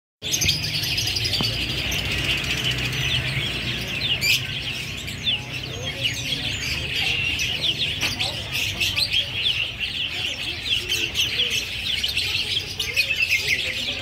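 Small songbirds chirping in a continuous, dense chatter of quick high chirps over a low steady hum.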